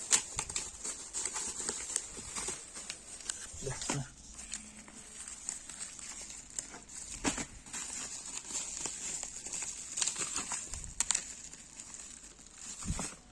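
Packaging rustling and crinkling as a phone charger is unboxed, with scattered clicks and taps throughout.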